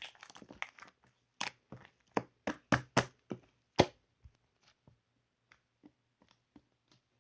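Close, sharp crunching and cracking of strawberry bingsu's shaved ice: a quick cluster, then a series of louder separate crunches, thinning to faint clicks after about four seconds.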